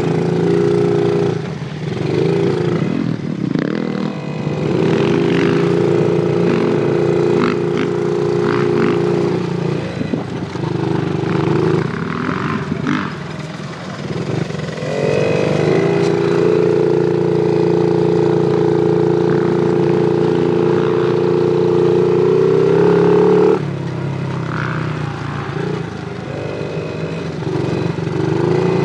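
Suzuki JR50 mini motorcycle's small two-stroke single running while ridden, its pitch rising and holding as the throttle opens, then dropping back as it eases off, several times over. A few brief clatters are heard in the first half.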